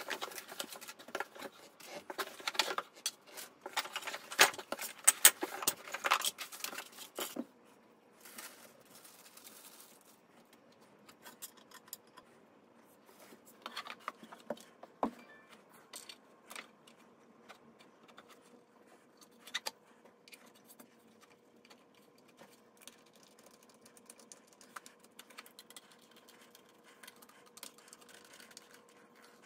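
Cardboard box being opened and its packing handled, a dense run of crackles and scrapes for about seven seconds. Then quieter, scattered clicks and knocks of flat-pack panels being handled and small screws being turned with a precision screwdriver, over a faint steady hum.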